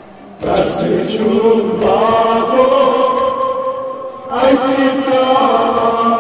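Male reciters chanting a Kashmiri noha, a Shia mourning lament, into a microphone in long held, drawn-out phrases. A new phrase begins about half a second in and another just after four seconds.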